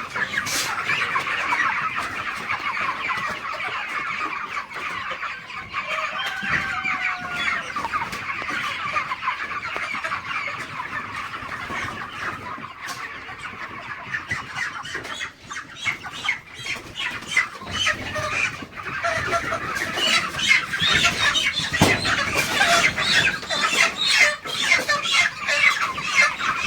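A large flock of 36-day-old Cobb 500 broiler chickens clucking and chirping all together in a dense, continuous chatter, with scattered sharp clicks. The flock grows louder in the last third.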